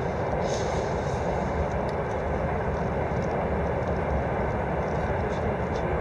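Campfire burning, with faint scattered crackles over a steady rushing noise.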